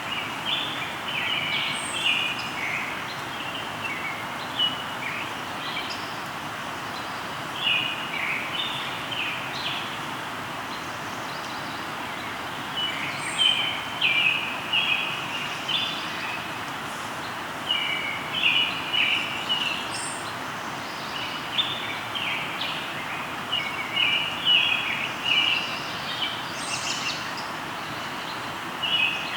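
Songbirds singing in short chirping phrases every few seconds over the steady rush of a flowing river.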